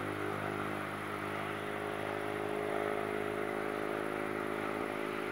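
Steady mechanical drone with a constant low pitch, over a continuous outdoor background noise.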